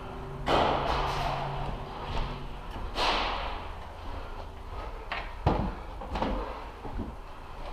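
Several sudden bangs and knocks in a large echoing hall: two louder ones about half a second and three seconds in, each trailing off, then a few sharper short knocks between five and seven seconds in.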